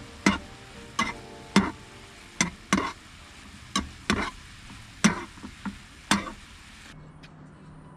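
A cooking utensil knocking against a pot about a dozen times at an uneven pace while stirring noodles, each knock sharp with a short ring. The knocking stops abruptly about seven seconds in.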